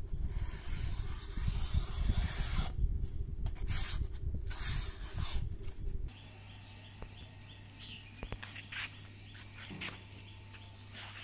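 A butcher knife's blade slicing through a sheet of paper: several rasping, hissing cuts over heavy handling rumble, a test of the freshly sharpened edge. About six seconds in this stops abruptly, giving way to a quieter, steady low hum with a few faint clicks.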